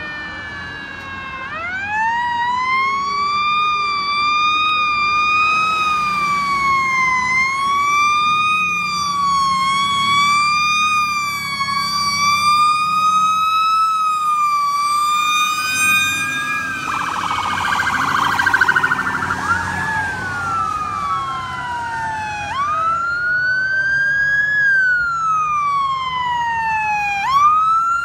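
Fire apparatus electronic sirens wailing in repeated rising and falling sweeps as a fire truck and then a rescue SUV pass, with a harsh buzzing horn blast lasting about three seconds midway. Engine rumble runs underneath.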